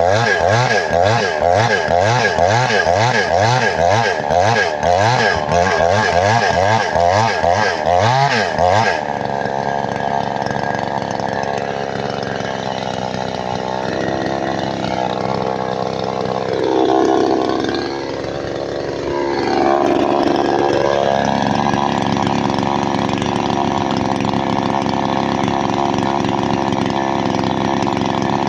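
Chainsaw engine running at high revs while cutting wood. Its pitch warbles rapidly for the first nine seconds, then steadies abruptly, sags once about two-thirds of the way through and picks back up.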